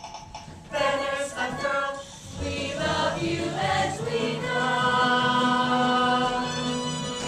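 Cast of a stage musical singing a show tune together over accompaniment, with short sung phrases and then a long held chord in the second half.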